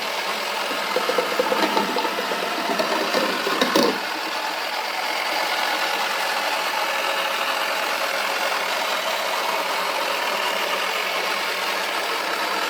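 Toy washing machine's small motor running with a steady whir as the drum turns, with irregular rattling and knocks for the first four seconds or so.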